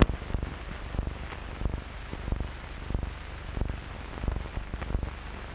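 Steady hiss with irregular pops and crackles from a worn early-1950s optical film soundtrack running without any programme sound.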